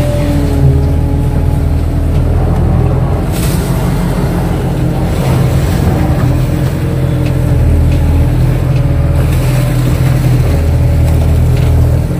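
Kato hydraulic excavator's diesel engine running under load as the boom and bucket work, its drone shifting in pitch as the hydraulics pull. The bucket splashes as it scoops mud out of the water.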